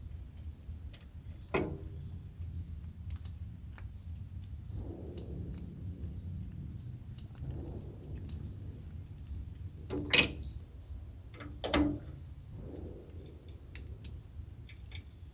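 Three sharp clicks, the loudest about ten and twelve seconds in, with softer scraping between, as a grease gun is worked on the tractor's grease fittings. Behind it, a steady high chirping repeats about twice a second over a low rumble.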